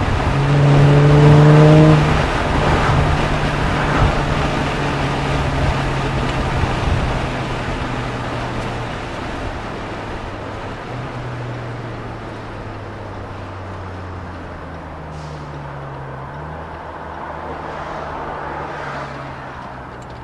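2017 Jaguar F-Pace's 3.0-litre supercharged V6 through an aftermarket touring exhaust and ECU tune, pulling hard with a rising note about a second in. It then runs on steadily over road noise, growing gradually quieter.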